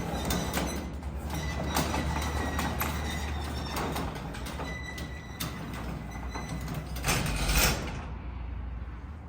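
A vehicle running with a steady low rumble under rattles and clicks, and a louder clatter about seven seconds in. The rattling stops near the end, leaving only the low rumble.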